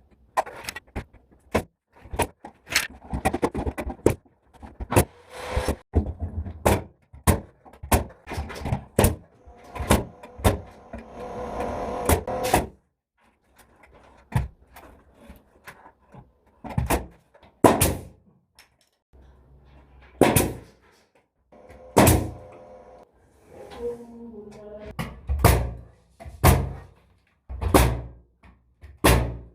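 Irregular series of sharp knocks and thuds, many in quick succession with short rumbling stretches between, from drywall and carpentry work.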